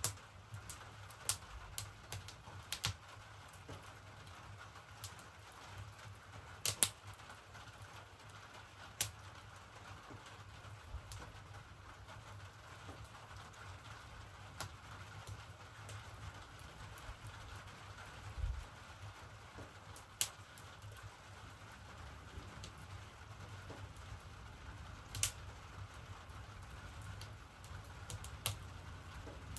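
Light rain falling as a steady soft hiss, with scattered sharp clicks and pops every second or two.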